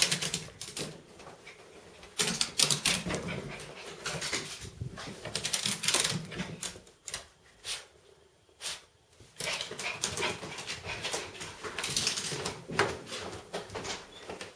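A small Yorkie-poo dog's claws clattering and scrabbling on a hardwood floor and rug in quick irregular bursts with short pauses between them, the frantic running of a dog after its bath.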